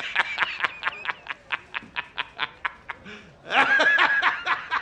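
A man laughing loudly: a rapid run of short bursts of laughter, about six a second, then a louder, higher held peak of laughter about three and a half seconds in.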